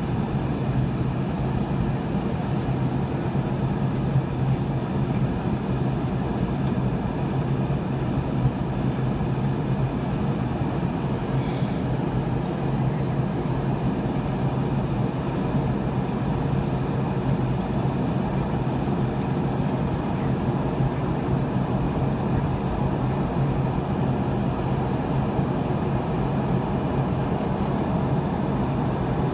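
Steady cabin noise of a Boeing 717 in flight: rushing airflow over a low, even drone from its two rear-mounted Rolls-Royce BR715 turbofan engines.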